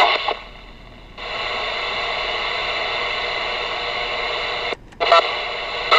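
Static and hiss from a Galaxy DX 47HP CB radio's speaker between transmissions. The hiss comes up about a second in and holds steady with faint steady tones under it, then breaks off briefly near the end with a click.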